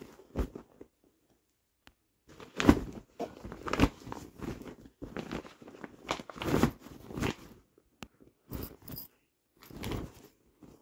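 Grey non-woven fabric storage bags with clear plastic panels rustling and crinkling as they are unfolded and opened by hand, in irregular bursts with a short pause about a second in, the loudest crinkles at about three and four seconds in.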